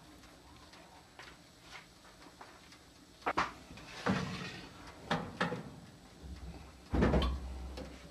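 Clacks and knocks of an electric oven's door and metal baking tray being handled: a pair of sharp clicks about three seconds in, more knocks over the next two seconds, and the loudest, a heavy thump, about seven seconds in.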